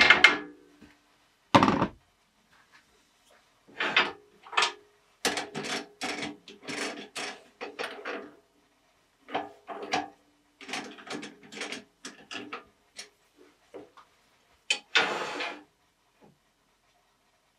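A hammer strike on a steel drive center set in a wooden blank rings out, followed by a dull knock. Then come clusters of short metallic clicks, rattles and scrapes as the blank is fitted into a wood lathe's four-jaw chuck and the chuck is worked by hand.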